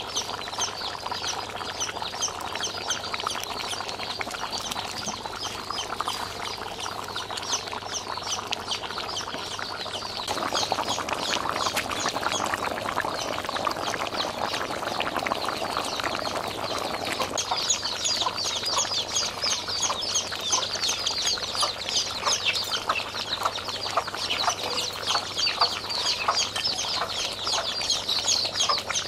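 Chickens and other birds calling: many short, high chirps overlapping throughout, with clucking.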